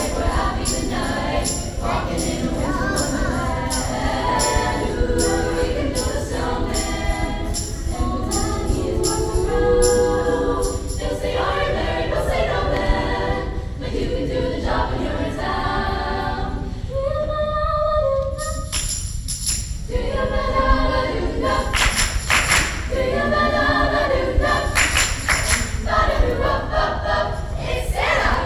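A choir singing, with a steady percussive beat under it for the first third or so that thins out later.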